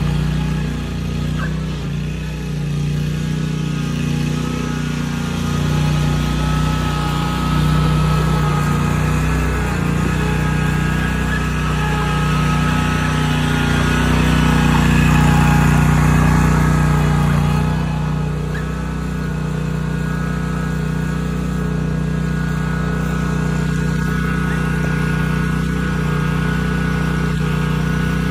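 Wright 32-inch stand-on mower's engine running steadily, dropping a little in level and brightness about two-thirds of the way through.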